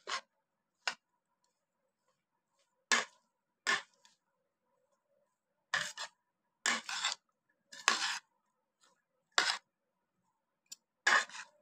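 Spoons scraping a ceramic plate and hands tossing sliced onion rings with spices: about ten short scrapes and rustles, each under half a second, with silence between.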